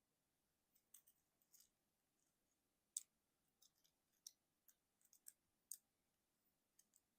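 Plastic parts of a Transformers Studio Series 57 Offroad Bumblebee figure clicking as the figure is handled and transformed: about a dozen short, soft clicks at irregular intervals, the loudest about three seconds in.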